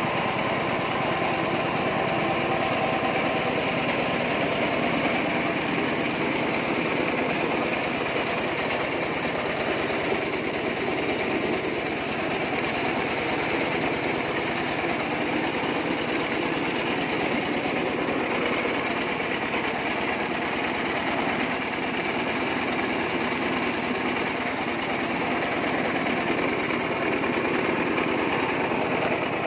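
Small belt-driven rice milling machine running steadily while milling rice, a continuous mechanical drone that does not change.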